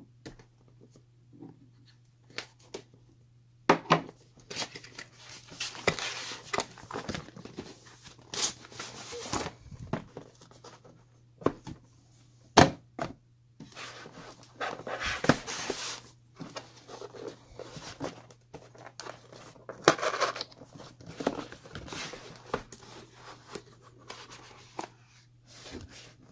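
Cardboard packaging being cut open with a multitool knife blade and unpacked: irregular scraping, rustling and tearing of cardboard, with scattered clicks and a few sharp knocks.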